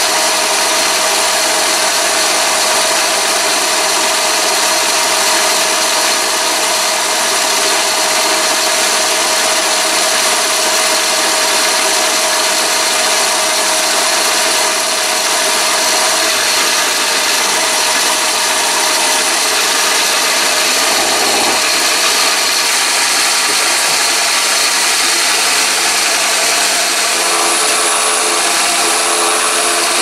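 Chinese mini lathe running and taking a turning cut on the front diameter of a workpiece: a steady motor whine with the noise of the cutting tool on the metal.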